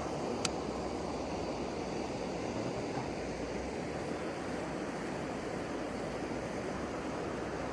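Steady rushing noise of waves, with one sharp click about half a second in.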